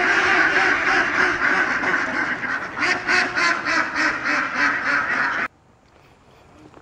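A flock of mallard ducks quacking, many calls overlapping in a loud, busy chatter that cuts off suddenly about five and a half seconds in.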